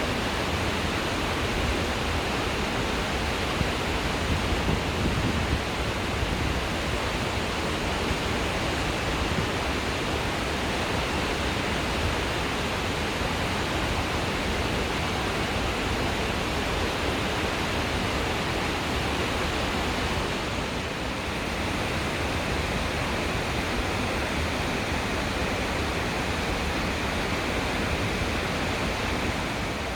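Hagoromo Falls, a waterfall, pouring down in a steady, unbroken rush of falling water.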